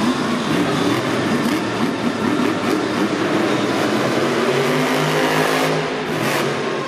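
Monster truck's supercharged V8 engine revving up and down over a loud crowd-filled arena, its pitch climbing about five seconds in.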